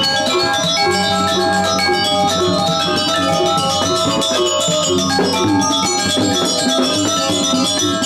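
Balinese gamelan pelegongan ensemble playing: bronze metallophones struck with mallets in a fast, dense run of ringing metallic notes over steady low tones.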